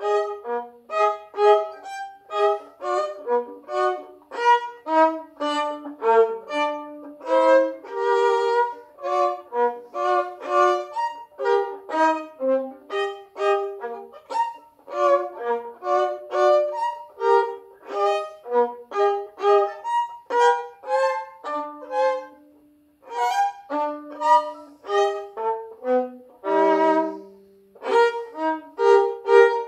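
Solo violin played with the bow: a quick tune of mostly short, separate notes, about three or four a second, with a brief pause about three quarters of the way through and a longer low note soon after.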